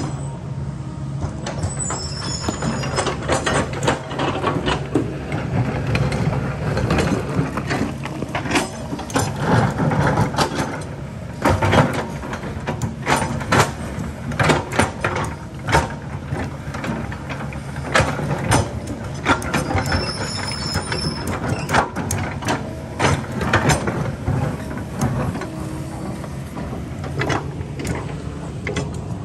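Kobelco excavator's diesel engine running steadily under load, with many irregular clanks and scrapes of the steel bucket working against rock.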